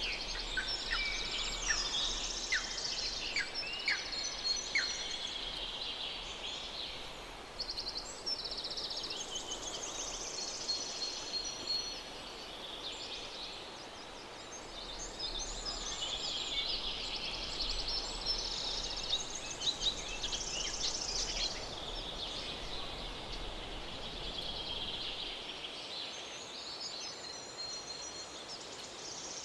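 Birds chirping and singing, with many short calls and rapid trills overlapping, over a faint steady background hiss.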